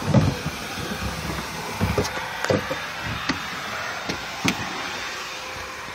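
Knocks and clicks of things being handled and shifted inside a car during a clean-out, about five sharp ones spread through, over a steady hiss.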